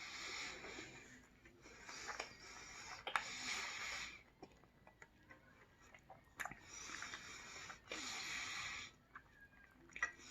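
Close-miked eating: three long, hissing breaths through the nose, with scattered sharp clicks from the mouth while chewing.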